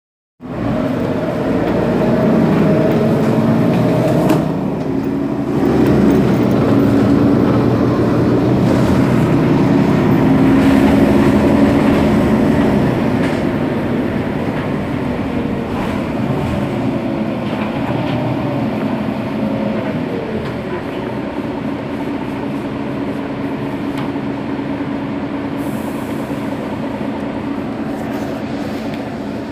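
Mercedes-Benz Citaro bus's OM 457 hLA straight-six diesel engine idling steadily, heard from right behind the bus; the running eases off slightly about halfway through.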